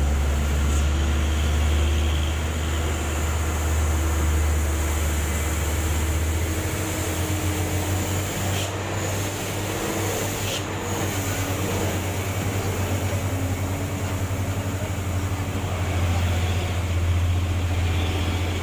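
Diesel engine of a truck-mounted crane running steadily under load while it hoists a wrecked truck. Its low drone changes to a coarser, pulsing note about six seconds in.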